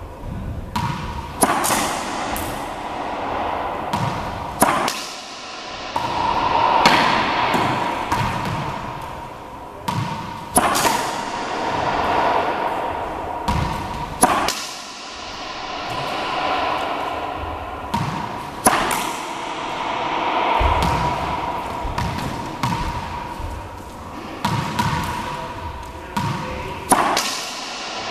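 A racquetball struck with backhand swings of a racquet and smacking the front wall of an enclosed court every few seconds, each hit ringing on in the court's hard echo. The ball bounces on the hardwood floor between shots.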